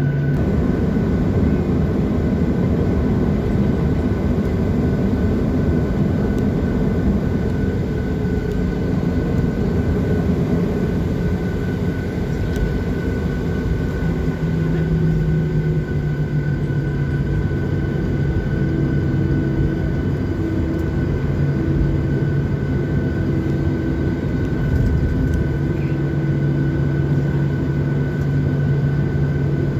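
Boeing 737-700's CFM56 turbofan engines heard from inside the passenger cabin: a loud, steady rumble with a low hum and a thin high whine over it, the hum shifting slightly in pitch now and then.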